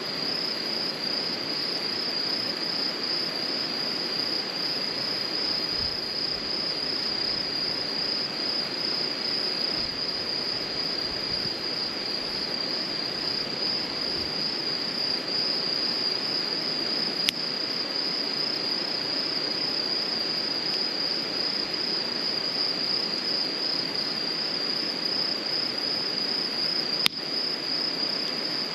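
Crickets trilling in a steady, high, continuous chorus. Two sharp clicks cut through it, one a little past halfway and one near the end.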